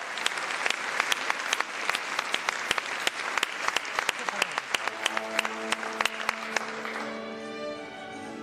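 Audience applauding, with many sharp single claps. About five seconds in an orchestra starts playing held string chords, and the applause dies away.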